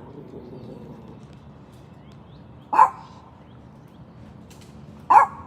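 A dog barks twice, two single loud barks about two and a half seconds apart.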